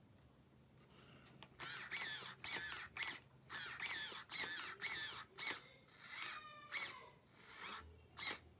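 A Traxxas Rustler's steering servo whining in short bursts, about ten times, as the front wheels are swung back and forth from the radio transmitter.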